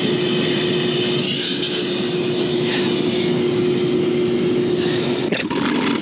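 Compressed air blowing through a sooted gas-furnace heat exchanger tube from a blow nozzle: a steady loud hiss with a low steady tone, cutting off about five seconds in. The air is blasting soot loose from the plugged heat exchanger.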